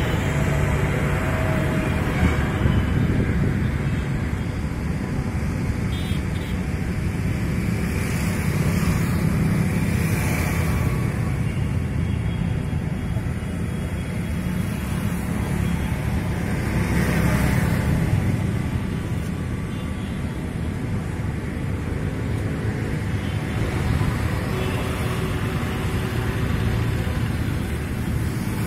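Steady street traffic noise, with louder swells as vehicles pass twice, around a third and two thirds of the way through.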